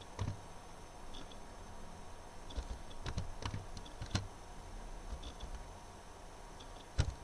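Computer keyboard keystrokes: a few scattered taps and clicks as a word is typed, then corrected with backspace presses.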